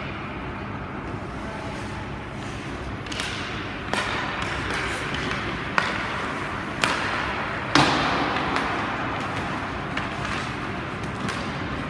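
Ice hockey play on the rink: a hiss of skates on the ice with several sharp knocks from sticks, puck and boards, the loudest about eight seconds in.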